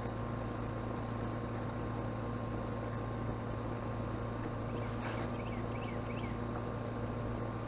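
Steady low machine hum with a few fixed tones, unchanging in level. About five seconds in there is a faint click, then a short run of quick high chirps.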